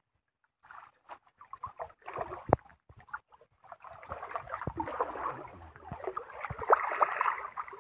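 Muddy pond water being bailed out with a scoop: irregular splashing and sloshing, sparse at first and denser from about halfway through, with a few sharper slaps.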